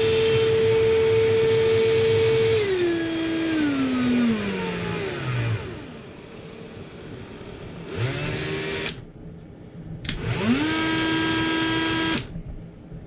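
Ryobi One+ R18RT 18-volt cordless rotary tool running with a high-pitched whine, then dropping down through its speed settings in distinct steps and spinning down to a stop. About three seconds later it starts for a moment, then spins up again to a lower speed and cuts off near the end.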